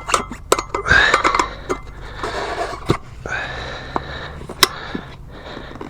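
Tire irons clicking and clinking against a small dirt bike's metal wheel rim, with stretches of scraping as the tire bead is levered onto the rim by hand in small bites. Several sharp clicks, the loudest about two-thirds of the way through.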